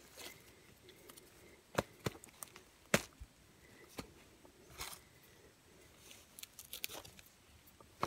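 Dry leaf litter and twigs crackling and ticking on the forest floor in a handful of sharp, separate clicks, with a few short rustles, over a quiet background.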